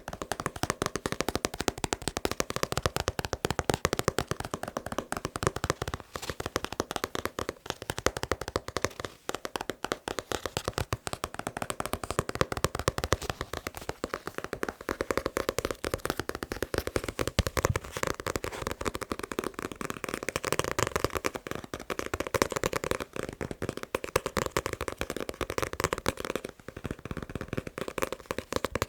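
Fast, continuous fingertip tapping on a manga, many quick irregular taps a second.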